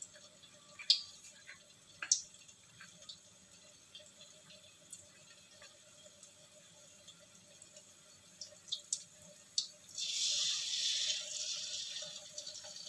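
Battered cempedak fritters deep-frying in a wok of hot oil: a faint sizzle with scattered sharp pops and crackles. About ten seconds in, a louder hissing sizzle lasts a couple of seconds as another fritter goes into the oil.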